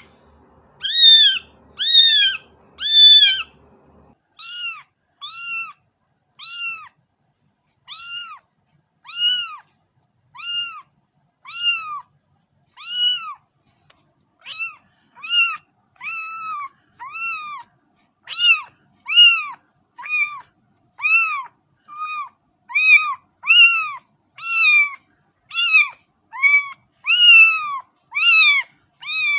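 Cat meowing over and over: short, high, arched meows about one a second, the first three the loudest.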